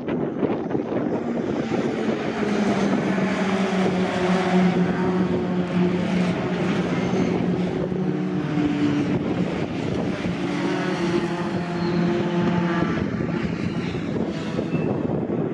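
A pack of racing pickup trucks running hard past the trackside, many engines overlapping in one steady din. Their notes shift up and down in pitch as the trucks pass.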